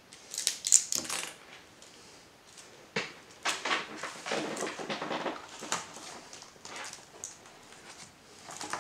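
Paper rustling and crinkling, with clear sticky tape being handled and pressed down onto the paper and straw in scattered small clicks and crackles. There is a denser stretch of rustling about halfway through.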